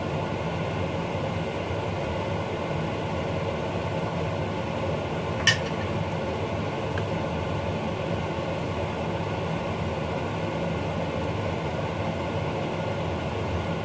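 A steady, even kitchen hum, with one sharp click about five and a half seconds in.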